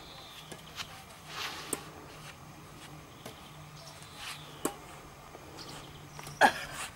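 Badminton rackets striking a shuttlecock during a rally: sharp, light pocks a second or more apart, with one louder short sound near the end.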